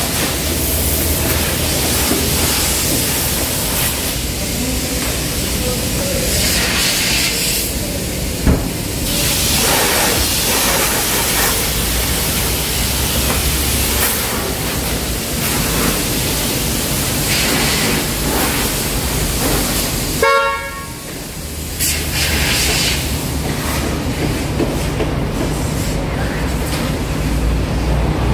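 High-pressure washer lance spraying water onto a car body: a steady hiss over the low hum of the washer pump. About twenty seconds in a short horn toot sounds and the spray briefly drops off.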